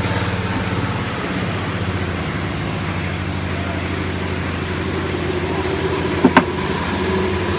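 Steady low machine hum, with a single short sharp clink about six seconds in as small metal parts are handled on the bench.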